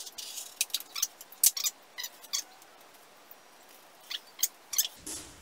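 Utility (razor) knife blade slicing through carpet fabric along a steel straightedge: a run of short scratchy cuts, pausing briefly midway and picking up again near the end.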